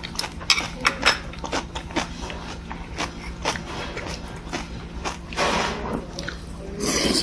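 Metal spoon clicking and scraping against an earthenware bowl while scooping rice soup, with eating sounds as spoonfuls are taken. There are short slurps about five seconds in and again near the end.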